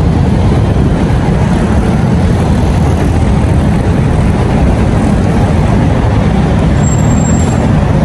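Steady, loud city street traffic noise: the low rumble of vehicle engines passing on the road.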